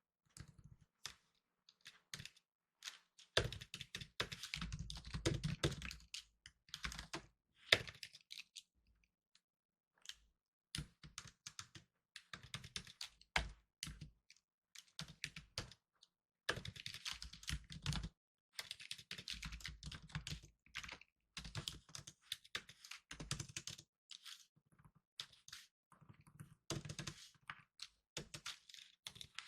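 Fast typing on a laptop keyboard: rapid runs of key clicks with short pauses between bursts, a few keys struck harder with a dull thunk.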